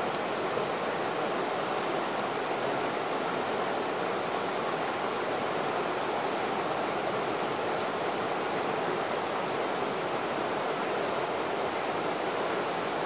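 Fast-flowing mountain river rushing over boulders and cobbles in a steady, even rush of white water, with no separate splashes standing out.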